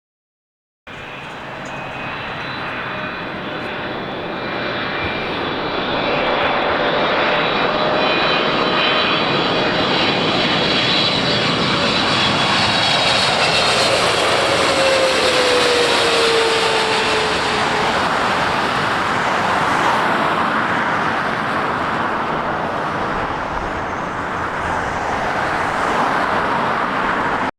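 Jet airliner passing by. Its engine noise builds to a peak about halfway through and then eases off, with whining engine tones that drop in pitch as it goes past.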